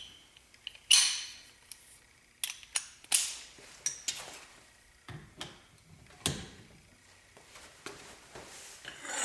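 Steel socket tools clinking and clanking as they are handled and fitted together: a breaker bar, extension, adapter and hex-key socket. The clinks are sharp and irregular, each ringing briefly, and the loudest comes about a second in.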